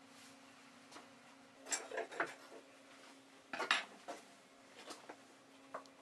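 Light clinks and knocks of metal against wood from handling the steel legs and frame of a fold-down oak cutting board: two quick clusters, then a few lighter taps near the end, over a steady faint hum.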